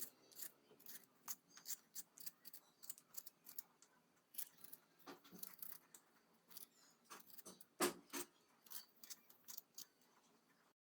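A potato being peeled: faint, short scraping strokes of a blade across the skin, about two or three a second, with one louder stroke about two-thirds of the way through.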